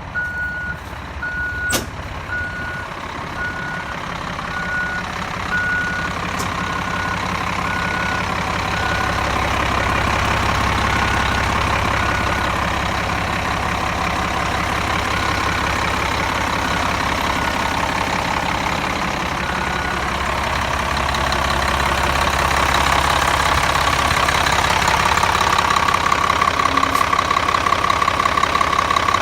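A backup alarm beeps about once a second, over the steady low running of a large diesel bus engine. The beeps fade out about two-thirds of the way through. The engine grows louder, and near the end it takes on a rapid, even pulsing.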